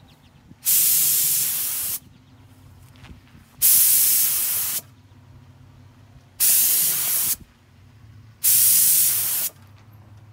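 Gravity-feed air spray gun spraying paint in four bursts of about a second each, each one starting and stopping sharply as the trigger is pulled and released.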